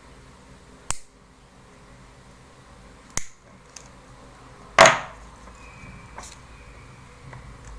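Nail clippers snipping fingernails: three sharp clicks a second or two apart, the third the loudest, then a couple of fainter ticks.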